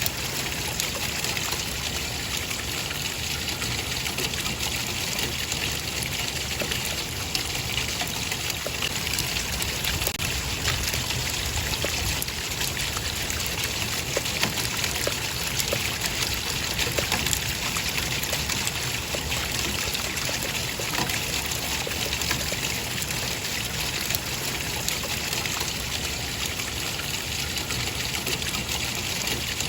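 Running water trickling steadily, with many small splashes and drips.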